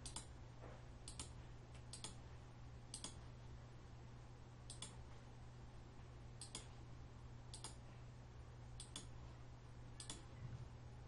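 Faint computer mouse clicks, single clicks at irregular gaps, about one a second, with a low steady hum underneath.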